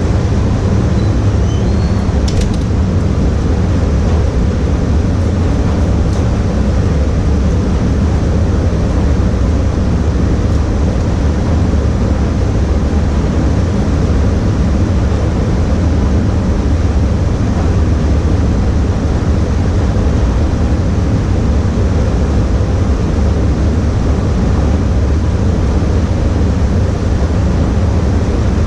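Paint spray booth ventilation running: a loud, steady rush of air over a low hum, unchanging throughout.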